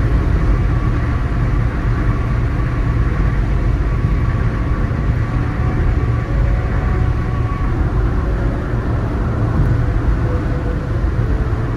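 Steady road noise of a car cruising on a highway, heard from inside the cabin: a low rumble of tyres and engine with a hiss over it.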